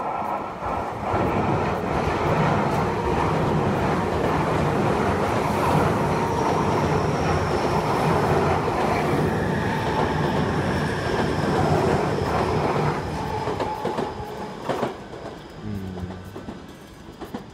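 Tokyu 5050-4000 series commuter train running past the platform, its wheels clattering over the rail joints, with a thin high whine over the rumble in its later part. The noise drops off about 13 seconds in and fades as the train pulls away.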